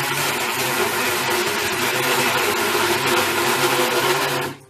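Kitchen mixer grinder (mixie) motor running steadily at speed, grinding raw chicken breast with spices into a paste, then cutting off suddenly near the end.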